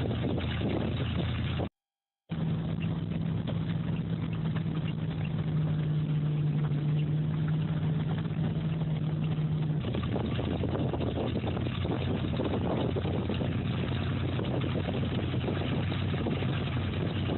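Heavy vehicle engine running steadily with a low hum, cut off by a brief dropout to silence about two seconds in; the engine note holds a strong steady drone until about ten seconds in, then turns rougher.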